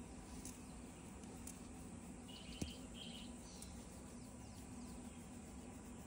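Faint outdoor background with a steady low hum, a small bird chirping twice about two and a half seconds in, and one sharp click in between.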